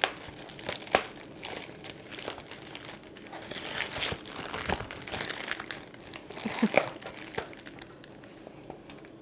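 Plastic shipping bag crinkling and rustling as it is tugged and pulled by hand, a tough mailer that won't tear open easily. The crinkling is busiest about four seconds in.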